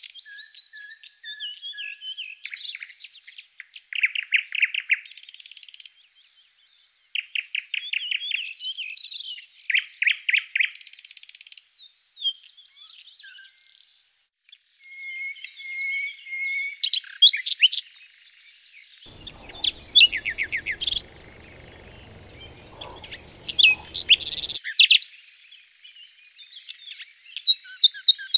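Songbirds chirping and trilling throughout, with quick runs of rapidly repeated notes and short whistled calls, from a nature-sound background track laid over the video.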